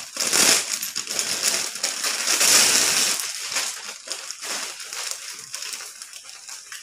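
Plastic saree packaging crinkling as it is opened and the folded art-silk saree is pulled out, loudest in the first three seconds, then softer rustling of the wrapper and cloth.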